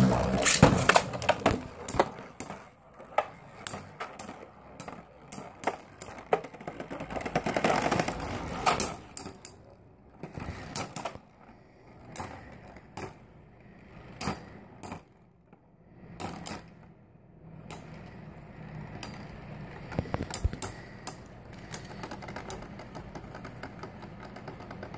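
Two metal-wheeled Beyblade spinning tops, Samurai Ifrit and Lightning L-Drago, spinning and colliding in a stadium. A dense rattle of clacks comes right after launch and again about eight seconds in, then thins to scattered sharp clicks over a faint steady whir as the tops spin on in an endurance finish.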